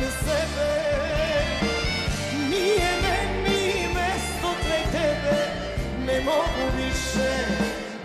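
Live Balkan pop-folk music: a woman sings into a microphone over a full band with a steady bass beat, her melody wavering and ornamented.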